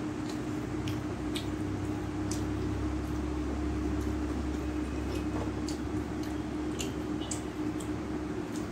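Eating rice and fish curry by hand: scattered small wet clicks and squishes as fingers knead rice into curry on a steel plate and the mouthfuls are chewed, over a steady low hum.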